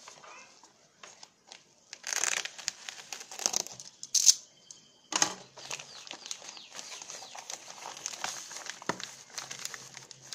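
A plastic courier mailer being slit with a utility knife and pulled apart by hand: a run of sharp crinkling and tearing noises, loudest about four seconds in, then steady crinkling of the plastic and the bubble wrap inside.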